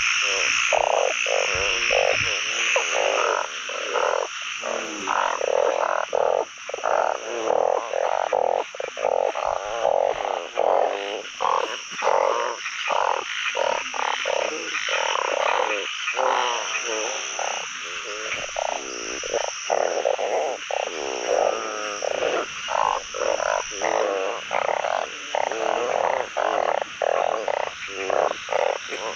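Dense chorus of frogs, among them narrow-mouthed frogs (อึ่ง), croaking all at once in many overlapping calls. A steady higher buzzing band runs above the croaks.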